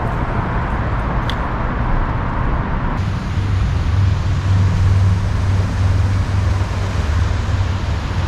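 Steady low rumble of distant road traffic that gets louder about three seconds in, with a single short click about a second in.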